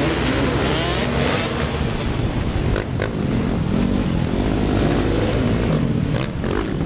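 Several enduro motorcycle engines revving and accelerating together as the bikes pull away from a start, their pitch rising and falling over one another, with wind noise at the rider's helmet.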